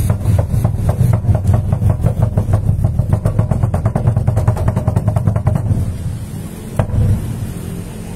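Lanna klong sabat chai drum, a large drum hung in a wooden frame, beaten with sticks in a quick steady rhythm that speeds up into a rapid roll. The roll stops about six seconds in, and one single loud stroke follows about a second later.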